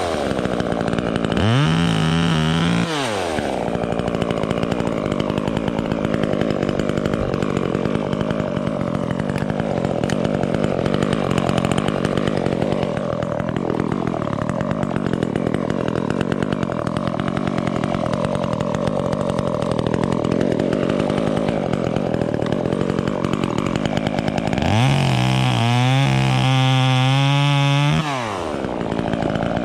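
Chainsaw cutting through an oak limb. It revs up briefly at the start, then holds a long, steady, loaded note through the cut. Near the end it revs freely, drops to idle, and revs again.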